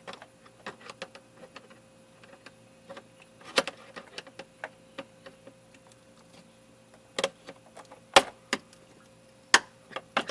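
Irregular small clicks and several sharp snaps and knocks of a tool prying at plastic push-pin trim clips, the pins working loose without popping free. A faint steady hum sits underneath.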